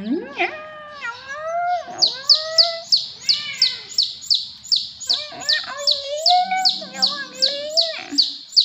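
Young chicks peeping: a fast run of short, high, falling peeps, about three a second, from about two seconds in. Longer, lower calls that slide up and down in pitch sound over them at the start and again in the second half.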